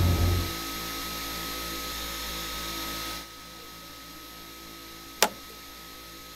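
A single sharp click about five seconds in, a circuit-breaker switch being flipped in a wall panel, over a faint steady hiss. A low rumble stops about half a second in.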